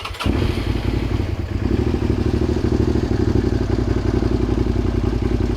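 2007 Suzuki SV650S's 90-degree V-twin engine catching just after a short burst of starter cranking, then idling steadily. The bike is starting on its newly installed ignition switch.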